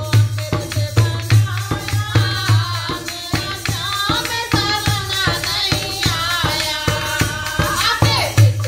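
Women singing a Hindi devotional bhajan to Krishna in chorus, to a dholak barrel drum played in a steady rhythm, with hand clapping and a jingling hand percussion keeping the beat.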